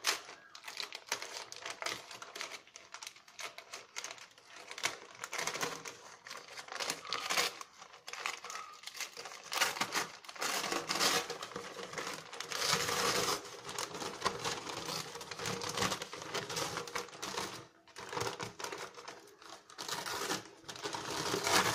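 A sheet of newspaper crinkling and rustling in irregular bursts as it is pulled off over the nails hammered through it into a board.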